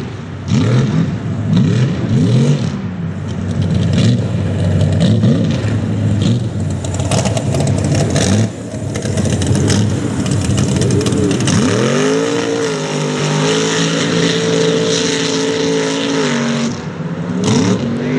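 Mega truck engine revving hard through deep mud, pitch repeatedly rising and falling, over a constant rush of tyres churning and throwing mud. About twelve seconds in it climbs to a steady high rev, holds for about four seconds, then drops back.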